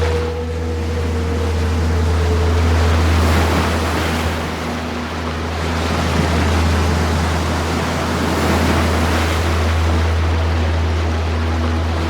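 Ocean waves washing in and out, swelling and ebbing every few seconds, over a steady low drone.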